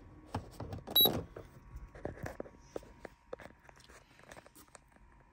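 Handling noise from a handheld ECU tuner in a car cabin: scattered clicks and rustles of hands and device, with one short high beep and knock about a second in.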